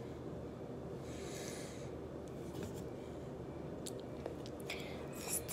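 Faint rubbing or scratching sounds, a soft hiss about a second in and a few light clicks near the end, over a low steady room hum.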